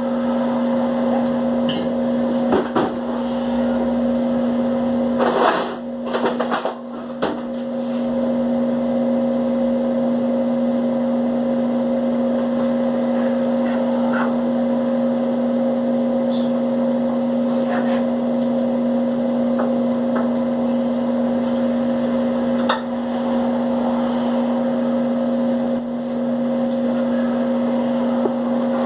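A steady, loud electrical appliance hum with a fixed low pitch, with rustling and a few knocks from things being handled, most of them about five to seven seconds in.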